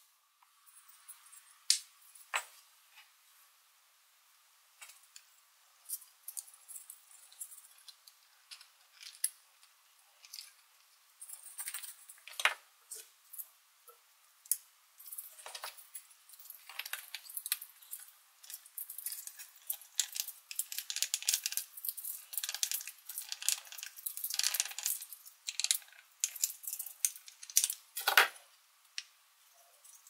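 Small metallic clicks, taps and scrapes as the tool of a Victorinox Swiss Army knife works thin wire wrapped around wooden blocks, twisting it tight. Sparse at first, much busier in the second half, with one louder click near the end.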